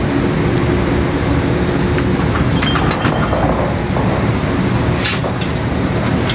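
Steady loud rumble of a 2000 HP SCR drilling rig's floor machinery running, with a sharp metallic clank about five seconds in.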